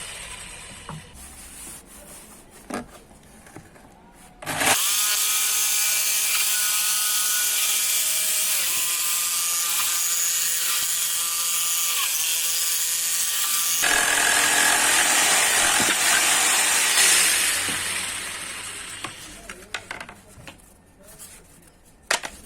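Electric power tool working wood: it starts suddenly about five seconds in with a steady motor whine that dips slightly in pitch twice under load, turns into a rougher hiss for a few seconds and then fades out. A few light knocks of wood follow near the end.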